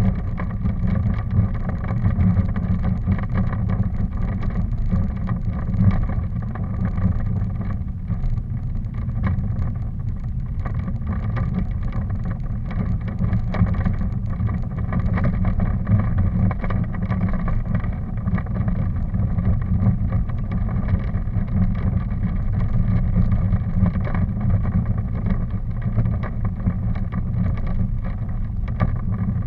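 Steady low rumble of travel with some wind on the microphone, heaviest in the bass, with no sudden sounds.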